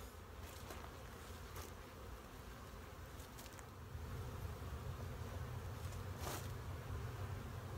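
Honeybees buzzing around an opened hive, a steady hum that grows louder about halfway through. A few faint taps and one brief knock come from the hive box being handled.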